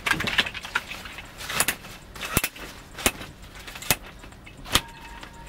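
A Cliq pop-up camp chair being unstrapped and popped open: its fabric rustles, and its metal legs clack and click several times as they spread out.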